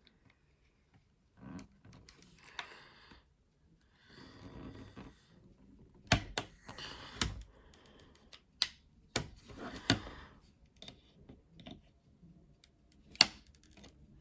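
Plastic case of an Xbox media remote being pried open with a pocket knife: scraping, with sharp plastic clicks and snaps as its strong retaining clips let go. The loudest snap comes near the end.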